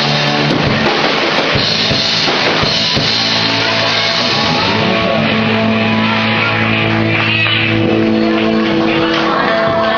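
Rock band playing live, with a drum kit and guitar.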